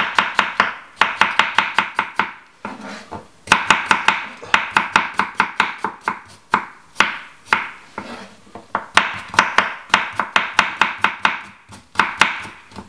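Kitchen knife slicing radishes on a wooden chopping board: quick runs of strokes, several a second, each one tapping the board, with short pauses between runs.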